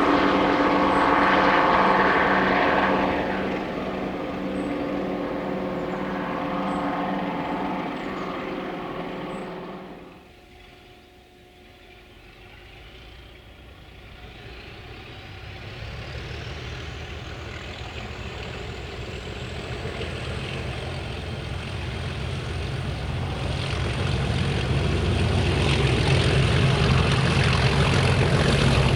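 Heritage British mainline diesel locomotives working under power: the first is loud at the start and fades away over about ten seconds. After a short lull a second one comes on, a whine rising steadily in pitch as its engine noise builds to full loudness near the end.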